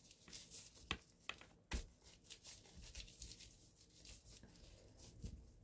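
Near silence: room tone with a few faint, short clicks and rustles.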